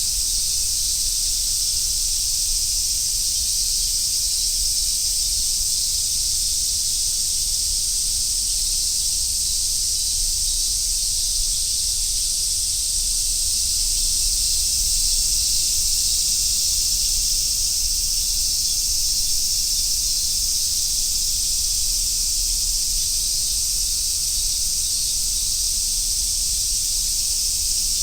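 A chorus of cicadas buzzing steadily and densely without a break, swelling slightly midway.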